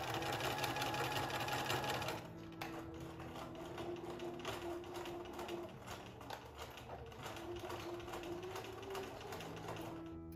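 Bernina electric sewing machine stitching through linen fabric, running steadily at speed with rapid, even needle strokes. It is louder for the first two seconds, then quieter, and stops near the end.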